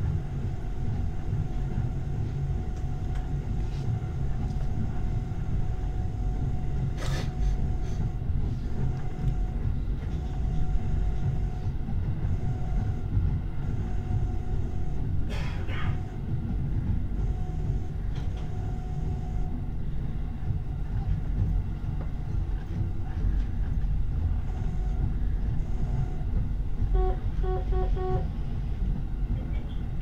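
Jōban Line local electric train running at reduced speed, heard from inside the driver's cab: a steady low rumble of wheels on rail with a faint steady motor tone. Two sharp knocks come about eight seconds apart, and a pulsing ringing starts near the end.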